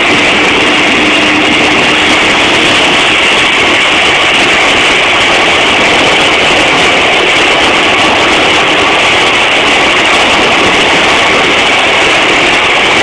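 Turboprop engines of a de Havilland Canada DHC-6 Twin Otter idling on the ground: a loud, steady turbine whine over the rush of the turning propellers.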